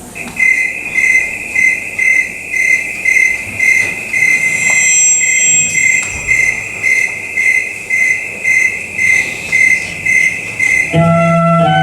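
A steady high tone with a chirping pulse repeating about twice a second, like a cricket, as part of a live sound performance. Near the end, several lower sustained notes come in.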